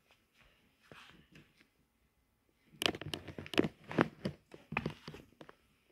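Close scratching, rustling and knocking of a playful kitten scrabbling on a woven rug right at the phone. The sounds are faint at first, then become a quick run of sharp scrapes and knocks from about three seconds in.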